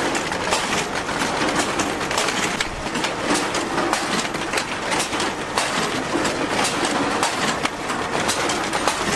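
Fish-sorting machine running as a stream of Japanese anchovies slides off its rack of round bars and pours into metal trays: a loud, dense clatter of countless small taps over a steady rush.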